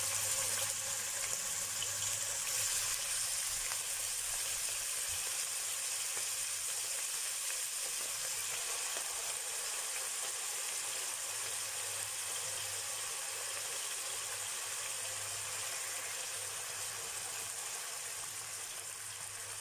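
Marinated pork slices frying in hot oil in a pan: a steady sizzle that gradually quietens.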